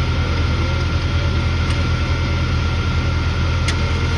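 A nearby engine runs steadily, a constant low drone with a faint steady whine above it.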